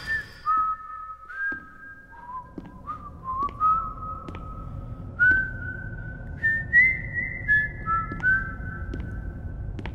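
A slow whistled melody: single long held notes, each sliding up slightly into its pitch and stepping up and down from note to note, with faint ticks underneath.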